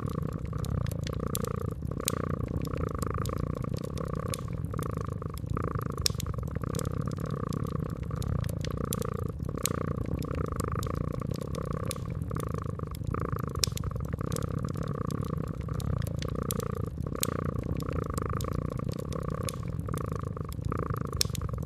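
Cat purring steadily in a slow even pulse, over fireplace flames crackling with frequent sharp pops.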